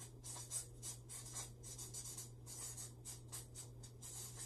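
Felt-tip marker writing on flip-chart paper in quick, short strokes, faint, over a steady low hum.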